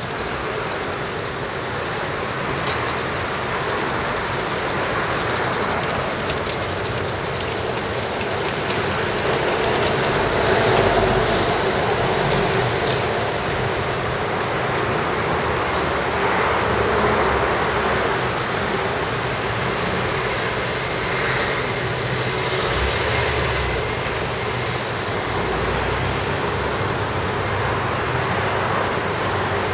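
Steady city street noise: a continuous rumbling wash of sound, swelling slightly about ten and seventeen seconds in.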